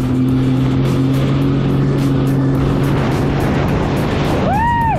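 Sea-Doo jet ski running at speed, a steady engine drone under the rush of wind and water spray. A short tone rises and falls near the end.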